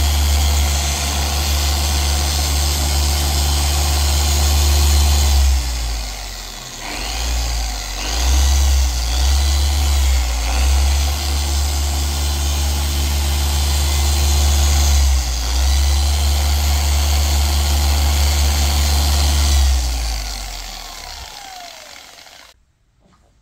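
Electric orbital polisher running with a foam pad on car paint: a steady motor hum whose pitch dips and recovers a few times. It winds down near the end, then cuts off suddenly.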